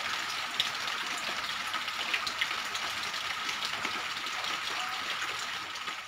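Wood fire burning in the firebox of a terracotta kiln: a steady rushing hiss with many small crackles and pops.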